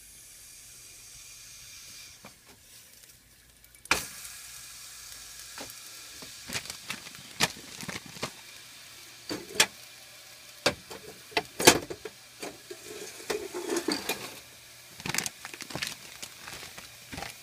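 Kitchen handling noises on a stovetop: a plastic ziplock bag crinkling and a ceramic mug being picked up and set down, as a series of sharp clicks and knocks, over a faint steady hiss.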